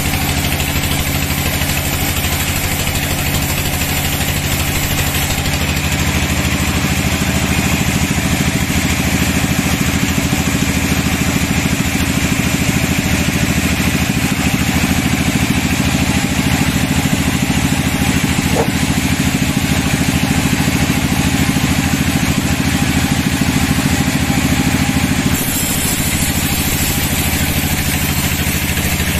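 Sawmill band saw ripping a dry teak log lengthwise, its drive running steadily under load with a low hum and the hiss of the blade in the wood. The sound fills out about six seconds in and drops slightly a few seconds before the end.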